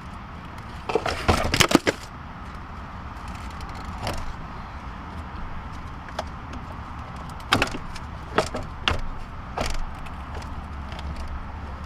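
Irregular clicks, clacks and knocks of a tool and hard plastic interior trim being worked on inside a car's dash. There is a cluster of them about a second in, and several more between about seven and a half and ten seconds in.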